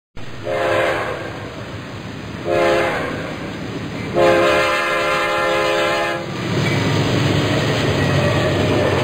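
A diesel locomotive's multi-chime air horn sounds three times: two short blasts, then a long one of about two seconds. Low train rumble follows.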